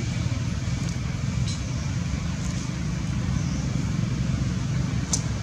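Steady low outdoor rumble with two faint sharp clicks, about a second and a half in and near the end.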